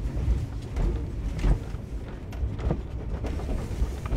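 Steady low rumble of a Durango & Silverton narrow-gauge train car rolling on the rails, with scattered clicks and knocks.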